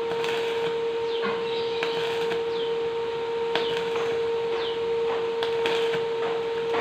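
Electric arc welding on steel tube: the arc crackles and sputters, with scattered clicks, over a steady hum from the welding machine.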